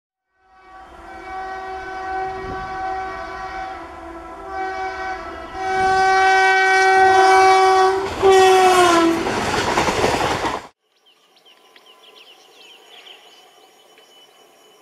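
Electric locomotive's air horn sounding in several long blasts, the last one falling in pitch. The rushing noise of the train passing follows and cuts off suddenly about eleven seconds in. Faint bird chirps after that.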